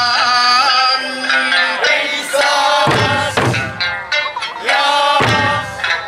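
Okinawan Eisa music: a folk song sung over the group's drumming, with two heavy strikes of the large barrel drums (ōdaiko), one about halfway through and one near the end.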